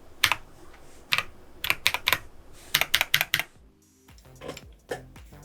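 Keystrokes on an FL Esports MK750 mechanical keyboard with Geon Black linear switches: separate, uneven clacks, some in quick runs. About three and a half seconds in, background music comes in, and fainter key clicks continue under it.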